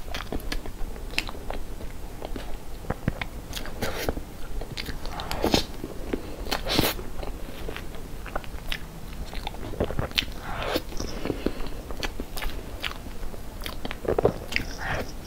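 Close-up eating sounds of cream cake: chewing with many small mouth clicks and smacks, and a spoon cutting into and scooping the soft cake.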